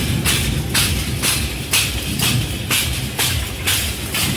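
Percussion-led music with a steady beat: crisp high hits about twice a second over low drumming.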